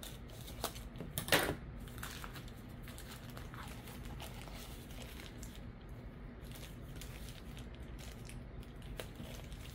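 Scissors cutting through a plastic poly mailer, then the thin plastic crinkling as hands handle and pull it open. A sharp crackle about a second and a half in is the loudest moment; after it the crinkling is faint.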